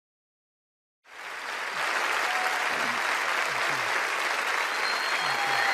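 Standing congregation applauding, starting about a second in, swelling quickly, then holding steady.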